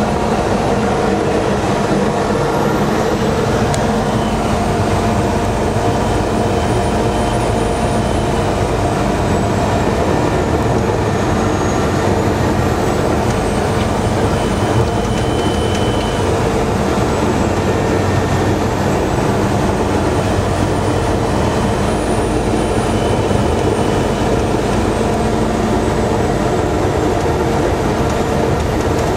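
Steady engine and road noise heard from inside a vehicle's cab as it drives along a snow-covered road.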